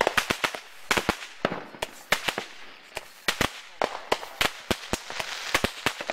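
Fireworks going off in a rapid, irregular string of sharp cracks and pops, several a second.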